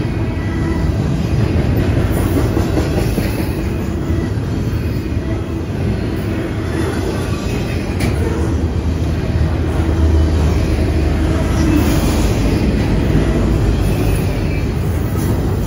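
Double-stack intermodal freight train's container well cars passing close by: a steady loud rumble of steel wheels on the rails, with occasional sharp clacks.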